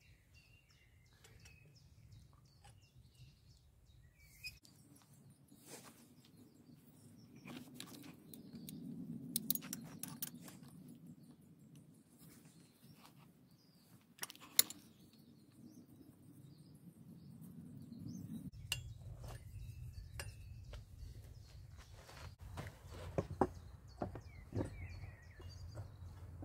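Faint birdsong in the background, with light metallic clinks and clicks of small forged steel trap parts being handled and fitted together. There is a sharper click about halfway through and a few more near the end.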